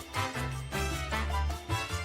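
Background music with a steady bass line and a quick, bouncy beat, Latin in flavour.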